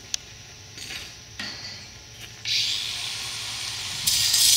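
A few light clicks, then a sudden steady hiss starting about halfway through, which grows louder near the end.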